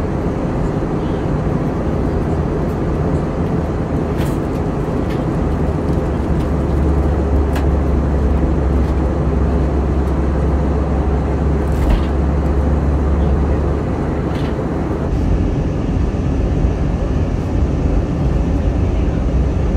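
Airliner cabin noise in descent: a steady rush of engines and airflow, heavy in the low end. A deeper rumble swells about a quarter of the way in and eases off about two-thirds through.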